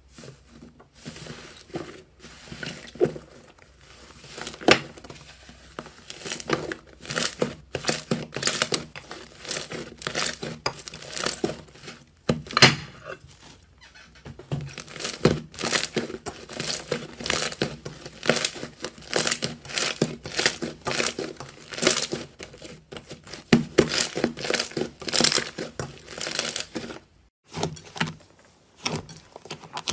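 Slime being kneaded and squeezed by hand, giving a dense run of irregular crackles and pops. There are brief lulls about halfway through and near the end.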